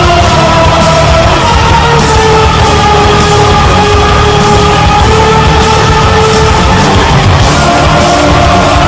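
Loud, heavy rock-style background music: held melodic notes over a dense, driving low end with regular cymbal-like hits.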